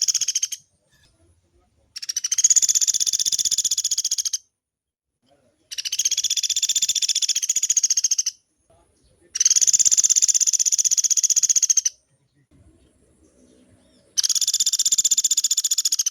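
Pelatuk beras woodpecker calling in long, rapid, high-pitched rattling trills, each two to three seconds long, repeated after short pauses.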